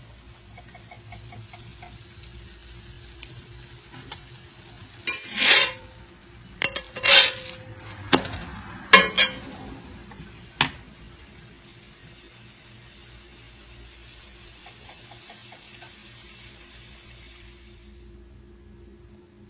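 A pancake sizzling in hot oil in a frying pan, with a utensil scraping and knocking against the pan several times between about five and eleven seconds in. The sizzle stops near the end.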